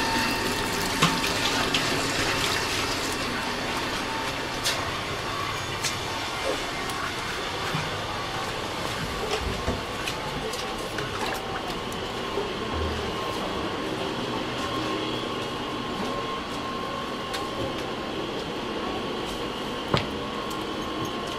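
Water running and splashing from hoses onto a wet concrete floor, a steady rushing, with scattered small knocks and clicks.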